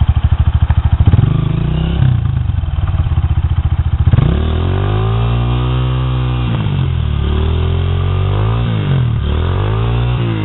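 Dirt bike engine revving under load as the bike is worked up a steep, muddy rut: low, pulsing revs at first, then a long rev that climbs and falls away about halfway through, followed by shorter blips.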